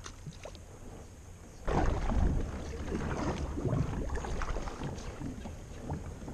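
Kayak paddle strokes in river water: quiet at first, then from a little under two seconds in a run of uneven splashes and drips as the blade dips and pulls, with a low rumble beneath.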